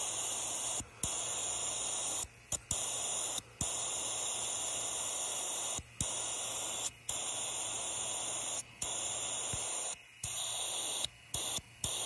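Air hissing steadily into a vacuum-tested fuel tank through the valve under its vacuum gauge as the vacuum is bled down from about 18 toward 10 inches of mercury. The hiss cuts off sharply for moments about a dozen times.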